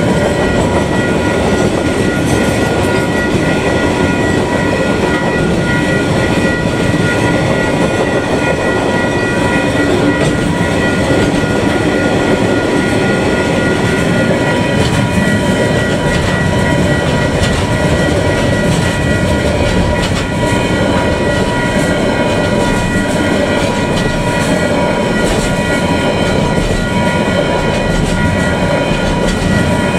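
Long KiwiRail freight train of container flat wagons passing close by at steady speed, its wheels clattering over the rail joints. Steady high-pitched ringing tones run over the rolling noise throughout.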